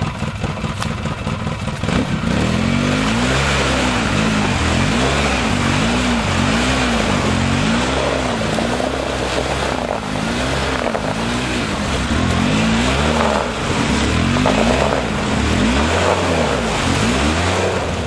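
ATV (quad bike) engine revved up and down over and over, about once a second, with the wheels spinning. The revving starts about two seconds in, after a quieter stretch.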